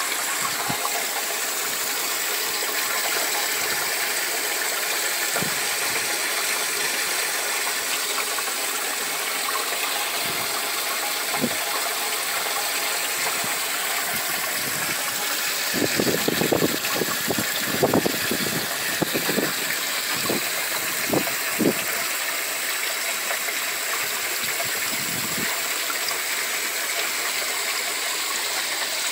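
Steady rush of flowing water in a homemade aquaponics system, with a run of gurgling gulps a little past halfway as water drains down the grow bed's siphon standpipe.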